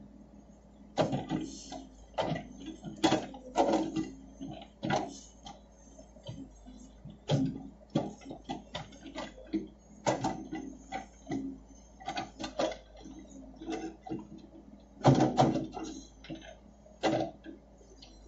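Case backhoe loader digging soil with its rear bucket: irregular clanks and knocks, some in quick clusters, over a faint steady engine hum.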